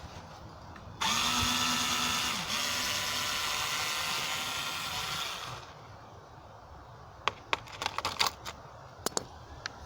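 Cordless power drill-driver running for about four and a half seconds, taking out fasteners. Then a scatter of sharp clicks and knocks as loosened parts are handled.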